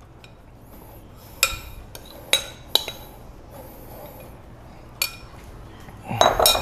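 Utensils clinking against dishware while a salad is being plated: about four sharp clinks spread over several seconds, each with a short ring.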